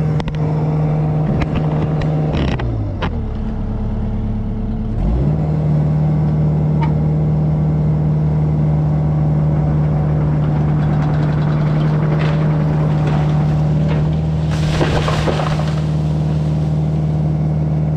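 A vehicle engine held at steady raised revs while pulling a rope to bring down a back-leaning tree. The revs drop about 2.5 seconds in, climb back about 5 seconds in, and fall again at the end. A brief rush of crackling noise comes about 15 seconds in.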